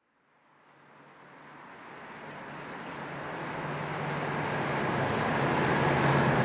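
A sailboat's engine running steadily under a broad hiss, fading in gradually from silence.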